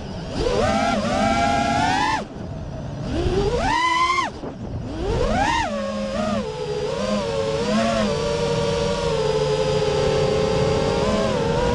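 FPV quadcopter's electric motors whining, their pitch rising and falling sharply with the throttle. The sound drops away briefly about two seconds in and again about four seconds in, then holds a steadier pitch with small wavers.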